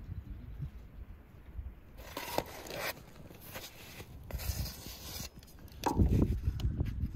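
A long wooden spatula scraping and sliding under a flatbread on a hot iron saj, in two short scraping spells, followed by a loud low rumble near the end.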